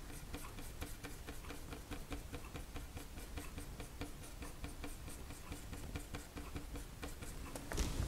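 Flat paintbrush stroking oil paint across a canvas in quick, short strokes, heard as faint scratchy ticks about four a second.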